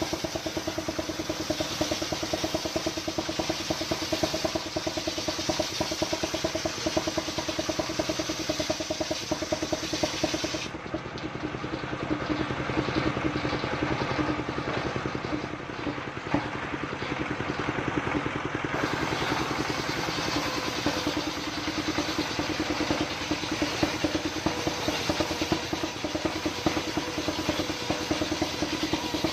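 Single-cylinder stationary diesel engine running steadily with a rapid, even chugging, driving a circular saw that rip-cuts coconut-trunk wood into planks.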